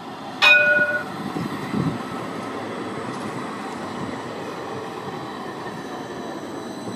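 Edinburgh Trams CAF Urbos 3 tram running past close by, a steady rumble of wheels on rail. A sudden short ringing signal, the loudest sound, comes about half a second in.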